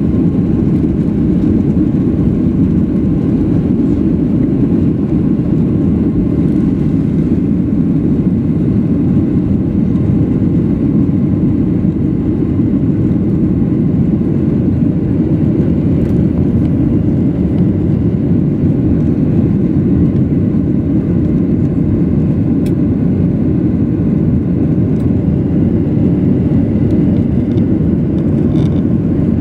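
Inside the cabin of a Boeing 737-800 during takeoff and initial climb: the CFM56-7B turbofan engines running at takeoff power with rushing airflow, a loud, steady, deep noise that holds unchanged throughout.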